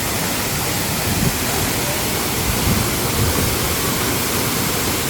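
Waterfall pouring into the churning, strong current at its foot: a steady, loud rush of water.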